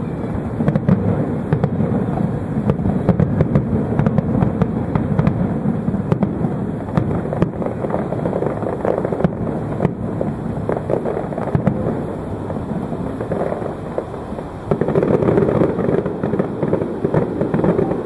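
Fireworks display in a continuous barrage of bangs and crackling, with a low rumble under many sharp pops. A louder stretch begins near the end.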